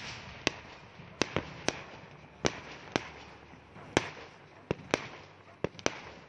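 Aerial fireworks shells bursting in a string of sharp bangs, about a dozen at uneven intervals, roughly two a second.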